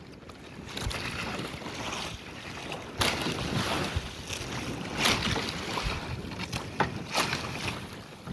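Wind buffeting the microphone over moving water, with scattered sharp knocks and clicks.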